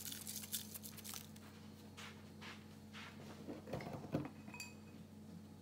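Light kitchen clinks and taps of dishes and utensils while asparagus is being seasoned, with a short ringing clink about four and a half seconds in.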